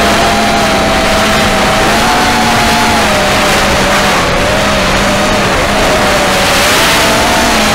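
An FPV racing quadcopter's motors and propellers whining steadily in flight, the pitch wavering gently with throttle, over a loud rush of wind noise on the onboard microphone.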